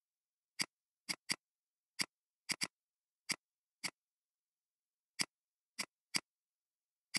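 Computer mouse clicking: about a dozen short, sharp clicks at irregular intervals, some in quick pairs like double-clicks, with dead silence between them.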